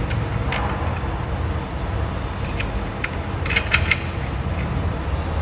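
Light metallic clicks of crimped ring-terminal cable ends and the lugs of an electric motor's terminal block being handled, including a quick run of three or four clicks about three and a half seconds in, over a steady low rumble.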